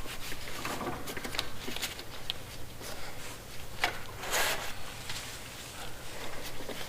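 Irregular rubbing and wiping swishes with small handling clicks as the oil drain cap and tube of a riding mower are wiped clean after an oil drain. The loudest swish comes about four and a half seconds in.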